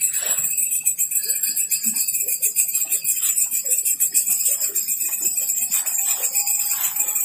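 Chorus of night insects trilling steadily at a high pitch, several shrill layers at once.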